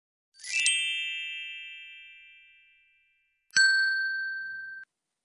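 Two chime sound effects from an animated subscribe-button end card. About half a second in, a shimmering chime rings out and fades over a couple of seconds. About three and a half seconds in, a sharp bell ding for the notification bell cuts off suddenly about a second later.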